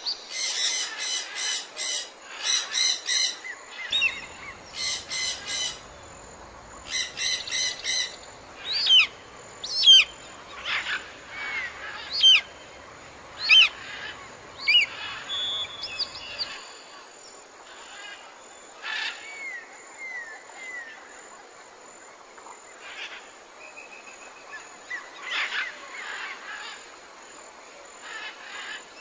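Birds calling: bursts of rapid, buzzy chattering calls over the first eight seconds, then sharp whistled notes that sweep up and down, thinning out to occasional calls in the second half.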